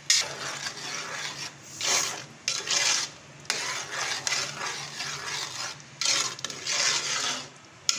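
A ladle stirring thick semolina halwa in an aluminium pot, scraping against the pot's bottom and sides in repeated rasping strokes with short pauses between them.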